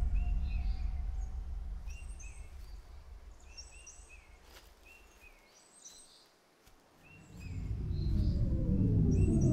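Birdsong, short chirping calls repeated about once a second, over a low musical drone that fades away over the first five seconds. Near the end a low, rumbling swell rises and grows loud.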